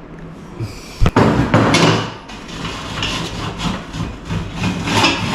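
A steel motorcycle rear fender and tools being handled on a workbench: a sharp knock about a second in, then irregular knocks and scraping.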